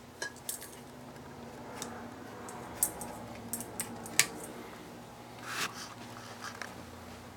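Early-1980s Homestead Four Winds ceiling fan motor running with a steady low hum, just switched from low to medium speed. A few light clicks come and go over the hum.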